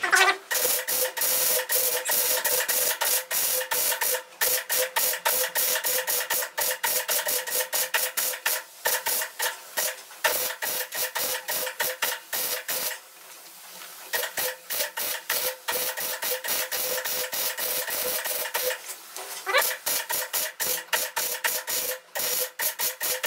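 MIG welder crackling and sputtering as it plug-welds large drilled holes shut in a Classic Mini's steel box section, with a steady hum underneath. The crackle stops briefly several times between welds, with a longer break about 13 seconds in.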